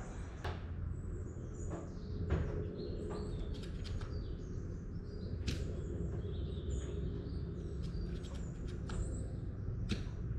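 A few faint, sharp, irregular pops from an Ares Striker 01 bolt-action spring airsoft sniper rifle fitted with a homemade foam-filled silencer, heard from about 40 and then 15 metres away. The loudest comes about halfway through and another near the end. Birds chirp over a steady outdoor rumble.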